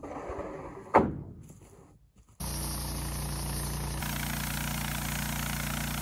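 Two heavy knocks about a second apart, each ringing out and fading, the second the louder; then, from about two and a half seconds in, the Wood-Mizer LT15 sawmill's engine running steadily.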